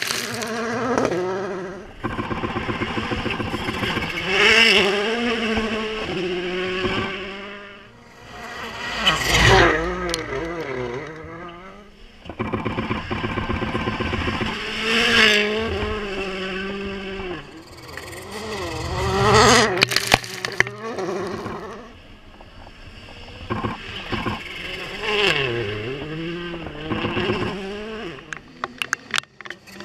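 Volkswagen Polo R WRC rally car's turbocharged four-cylinder engine revving hard up and down through the gears, the pitch climbing and dropping with each shift, swelling and fading several times as the car passes. Sharp exhaust pops and crackles come through about two-thirds of the way in and near the end.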